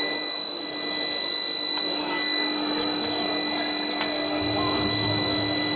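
Induction heating furnace running: a steady high-pitched whine with fainter steady tones and a lower hum from its frequency-converter power supply and coil. A low rumble joins near the end.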